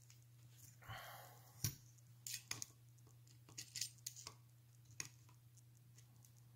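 Faint scattered clicks and a brief light scrape of a steel digital caliper being set against a two-stroke motorized-bicycle crankshaft while it is measured.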